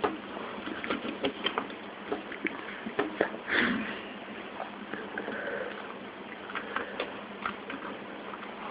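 Jigsaw puzzle pieces clicking and rustling as they are picked through and tried on a table, with small irregular clicks throughout. A short sniff comes about three and a half seconds in.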